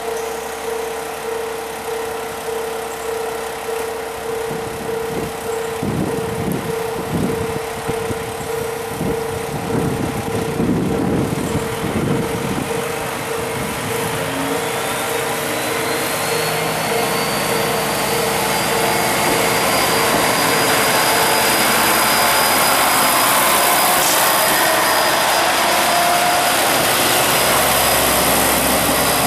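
KiHa 40 diesel railcar's engine revving up as it pulls away from a stop, with heavy surges of rumble. A whine rises in pitch as it gathers speed, and the sound grows louder as the car approaches and passes close by near the end. A pulsing tone rings through the first two-thirds and then stops.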